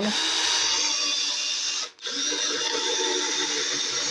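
Electric drill boring holes through the wooden panel of a speaker box, running steadily, stopping briefly about two seconds in and starting again.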